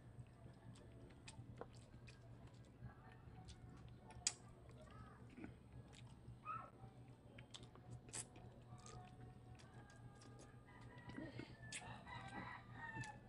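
Quiet eating sounds of chicken feet eaten by hand, with small scattered clicks and one sharper click about four seconds in. A rooster crows faintly near the end, one long call of about two seconds.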